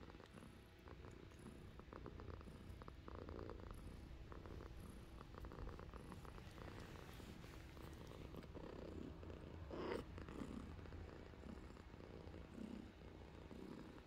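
Cats purring steadily while a mother cat nurses her kittens. Faint clicks come from the suckling, and there is one brief louder sound about ten seconds in.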